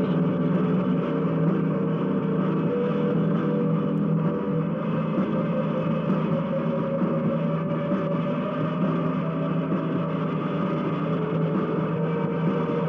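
Steady mechanical drone on an old, muffled tape recording, with faint music under it.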